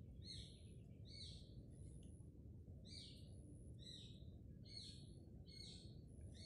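A bird chirping faintly over a steady low background hum. It gives about seven short, sharp chirps, roughly one a second, with a short pause near the start.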